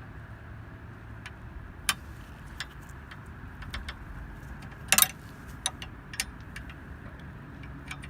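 Scattered metal clicks and clinks of a tool working an anti-rattle wedging ball mount as it is tightened in a trailer hitch receiver, the loudest knock about five seconds in, over a steady low hum.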